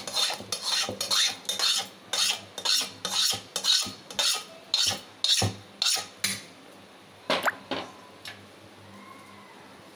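Steel spoon scraping the tempering out of a kadai into idli batter: quick repeated metal-on-metal scrapes, about two or three a second, stopping about six seconds in, with two more scrapes a second later.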